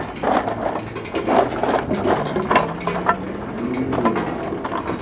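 Acoustic noise performance on hand-played objects: irregular clicks, rattles and scrapes over a low hum, with a low tone that slowly rises and falls about four seconds in.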